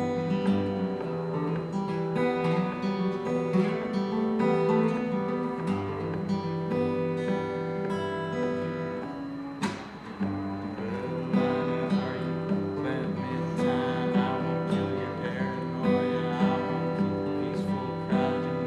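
Acoustic guitar playing, a run of strummed and picked chords, with a brief break about ten seconds in.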